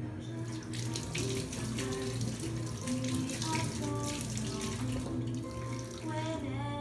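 Water running from a kitchen tap into a sink, over background music.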